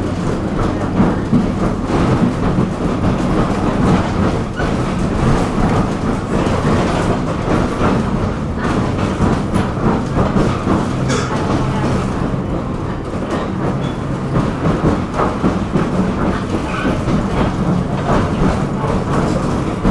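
Tram running along its rails: a steady rumble and rattle with repeated clicks and clatter from the wheels on the track.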